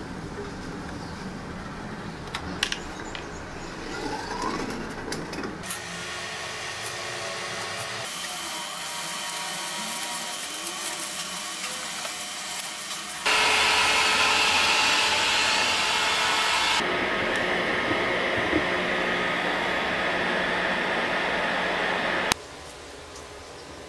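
A heat gun blowing steadily, heating foil-wrapped wood to steam it for bending. It is heard in several spliced stretches that change level abruptly and is loudest through the second half. The first few seconds hold light knocks and clicks of handling.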